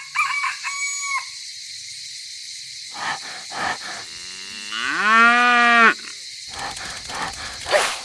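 A long farm-animal call about five seconds in, its pitch rising and then held for about a second. Two short, higher calls come in the first second.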